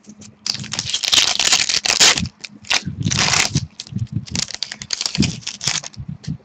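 Hockey trading cards from a freshly opened pack being handled, slid and shuffled against each other in three long rustling bursts.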